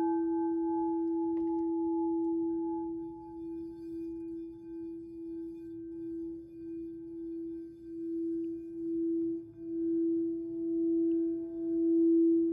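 Singing bowl ringing on one steady tone, its loudness pulsing slowly and swelling louder near the end.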